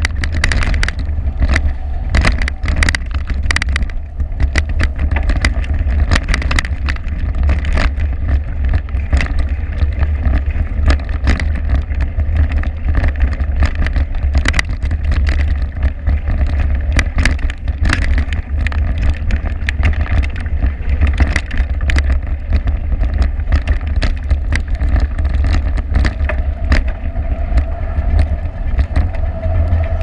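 Riding noise from a camera mounted on a bicycle on a rough dirt track: a steady low rumble of wind and road vibration, with frequent clicks and rattles as the bike jolts over the bumpy ground. A faint steady tone comes in near the end.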